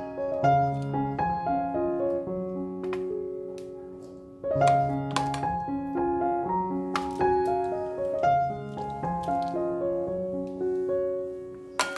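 Background piano music: a melody of held notes over lower bass notes, fading briefly about four seconds in before the next phrase begins.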